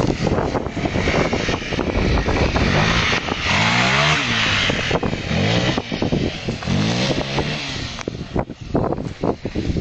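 Honda NX250 Dominator motorcycle riding past close by, its engine pitch rising and falling several times in the middle, over heavy wind buffeting on the microphone.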